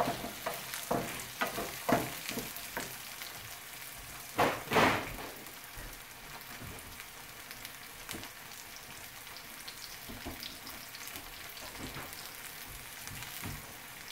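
Diced onions sizzling in hot oil in a frying pan, softening. For the first few seconds a wooden spatula scrapes them around the pan in quick strokes, with one louder scrape about four and a half seconds in. After that the onions sizzle steadily on their own.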